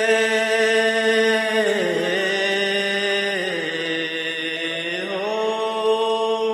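Slow song introduction: a long held melodic tone, sung or hummed like a chant, over a steady low drone. Its pitch dips about two seconds in and glides back up about five seconds in.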